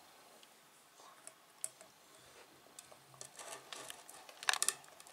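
Faint scattered clicks and rustles of a toddler's fingers picking crumbly food out of a metal pot, with a louder scraping cluster about four and a half seconds in.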